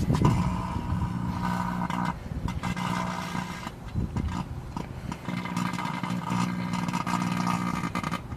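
Microwave oven running with a toy microwave inside it: a loud electrical hum that cuts out briefly twice and comes back.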